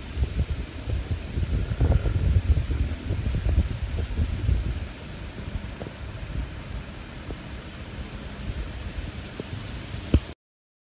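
Wind buffeting a phone microphone outdoors, a gusty low rumble that eases off about halfway through, with a few light knocks of the phone being handled, the sharpest shortly before the end. The sound cuts off suddenly near the end.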